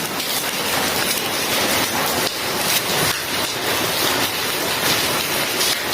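Steady hiss of heavy rain, with a few faint knocks scattered through it.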